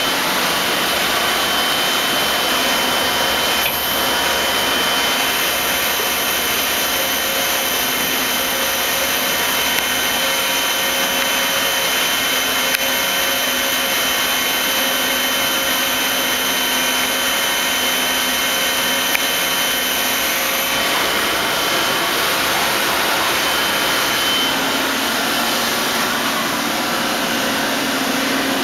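Agie 270 HSS CNC wire EDM running under power: a steady, loud rushing hiss with several faint constant whining tones on top. Some of the higher tones cut off about two-thirds of the way through.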